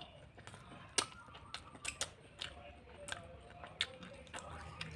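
Close-miked eating sounds: about eight irregular sharp clicks and light taps, spread over a few seconds.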